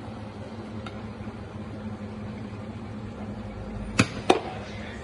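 Steady low machine hum, with two sharp knocks about four seconds in, a split second apart, from milk pitchers being knocked or set down on a wooden board.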